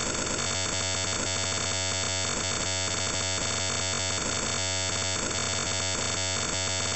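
Steady electronic drone of several held pitches with a faint, even pulse, unchanging throughout: an added track rather than the scene's own sound.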